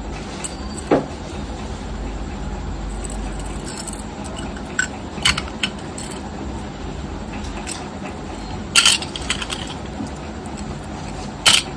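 Metal chain and beads of a wire-wrapped jewellery necklace clinking as it is handled in the palms: a few short, separate jingles and ticks, the loudest about nine seconds in, over a steady low background rumble.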